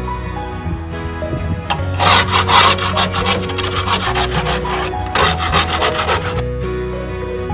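Rapid scraping or rubbing strokes for about four seconds, starting about two seconds in, over soft background music.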